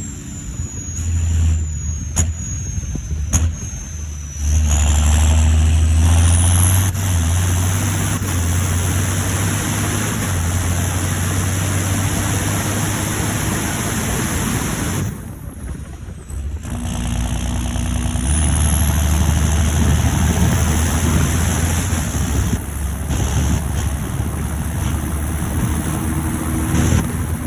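John Deere 7530 Premium tractor's six-cylinder turbodiesel engine pulling under load, with a high turbo whistle. The whistle falls away early on and rises twice as the engine comes back on power, about six seconds in and again near eighteen seconds, after a brief drop in engine level.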